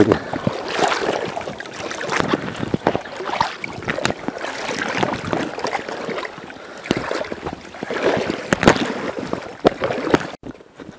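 Water sloshing and splashing close to the microphone as a hand works in the shallows at the bank, with scattered knocks and rustles of handling. It breaks off abruptly near the end.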